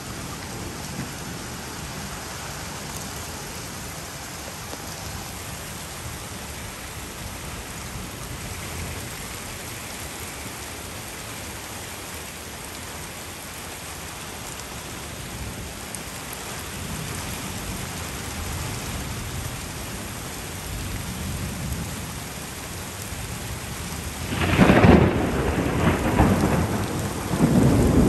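Heavy downpour with a steady hiss of rain, and low thunder rumbling from about halfway. Near the end a loud, sudden thunderclap breaks and keeps rumbling.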